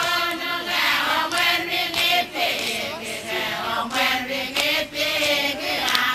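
A group of Satawalese women chanting together for a seated dance, many voices sustained and sliding in pitch as one.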